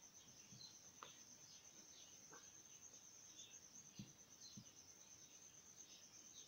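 Near silence with a faint, steady, high-pitched pulsing trill of crickets, with a few soft ticks.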